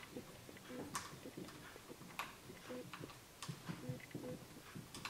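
Faint, scattered clicks and light taps of a small screw and metal mount parts being handled as a screw is fitted into a Quad Lock handlebar mount's clamp. A few sharper clicks come about a second apart.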